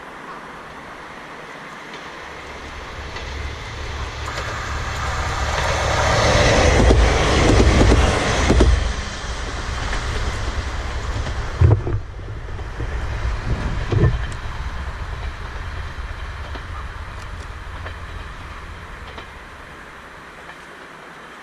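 A Kanto Railway diesel railcar passing: a rumble that builds to a loud peak about seven or eight seconds in, two sharp clacks of wheels over rail joints, then the engine drone fading away.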